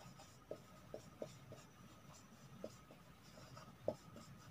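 Whiteboard marker writing on a whiteboard: faint scratchy strokes with a few short, sharp ticks spread through.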